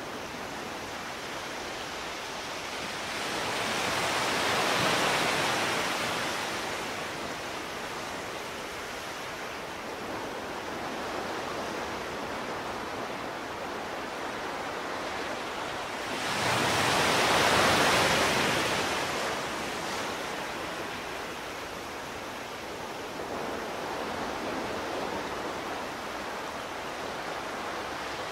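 Steady rushing, water-like noise that swells twice, once about five seconds in and again a little past halfway.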